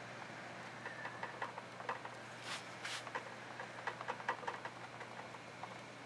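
Faint, scattered light taps and clicks from a small tool working wet acrylic paint on a canvas, with two short scratchy swishes about two and a half and three seconds in. A low steady hum lies underneath.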